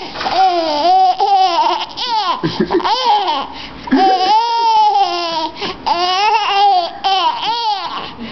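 Baby laughing in a string of high-pitched, squealing bursts with short catches of breath between them.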